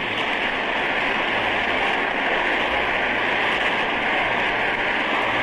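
Steady, loud rushing noise with a faint steady tone running through it, and no speech or music.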